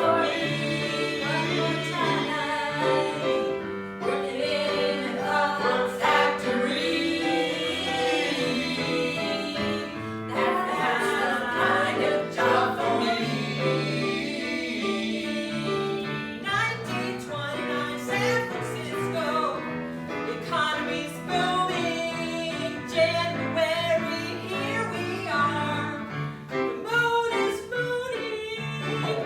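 Live stage music: singing over instrumental accompaniment, a song in an improvised musical.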